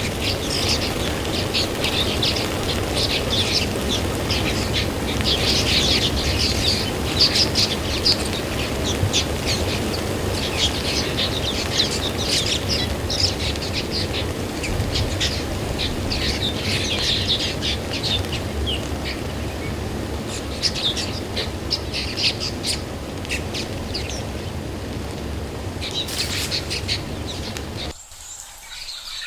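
Many small birds chirping in quick, repeated calls over a steady rumble of strong wind. The wind noise drops away suddenly near the end.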